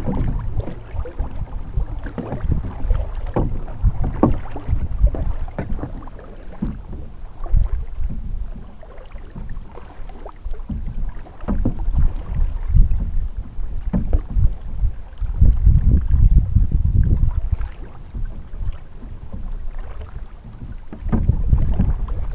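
Kayak paddling on a river: irregular paddle splashes and water knocking against the hull of a folding plastic kayak, over a low, gusty rumble of wind on the microphone.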